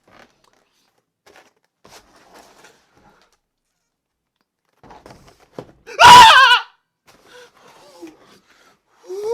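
A man's loud, short cry with a shaky, wavering pitch, lasting well under a second, about six seconds in; before it only faint clicks and rustles.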